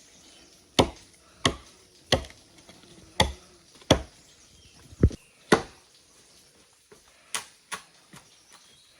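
A series of sharp chopping strikes, about seven hard chops roughly a second apart, then three lighter knocks near the end.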